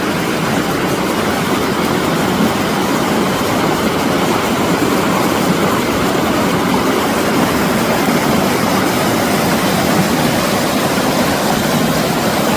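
Steady loud rushing of a mountain stream close by, an even hiss with no breaks.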